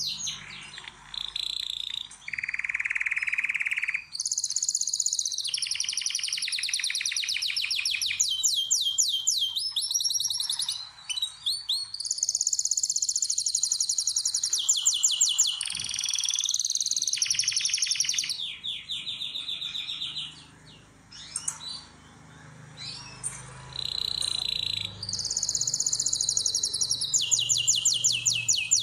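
Male canary in breeding condition singing a long song of rapid trills and rolling phrases, each phrase a fast run of repeated notes that changes pitch from one phrase to the next. The song softens briefly about two-thirds of the way through, then resumes with fast trills.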